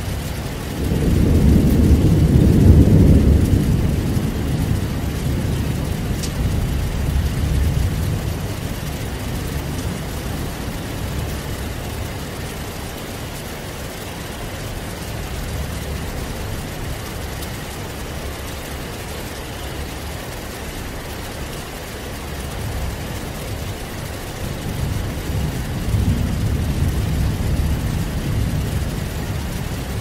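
Heavy rainstorm: a steady hiss of rain, with a low rolling rumble of thunder swelling about a second in and fading away over several seconds, and a second, weaker rumble building near the end.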